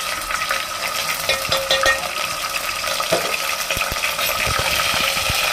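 Ginger-garlic paste frying in hot oil with mustard seeds and curry leaves in an aluminium pot: a steady sizzle, the tempering (tadka) for sambar. Scattered clicks of a steel spoon stirring and tapping against the pot run over it, more of them in the second half.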